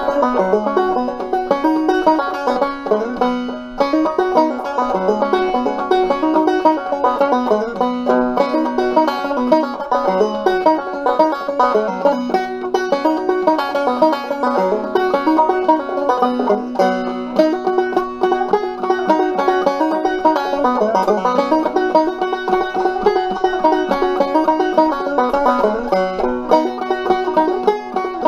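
Five-string banjo played clawhammer style in an unusual open tuning (bBF#BC#), a steady run of plucked notes and strums carrying a simple active tune.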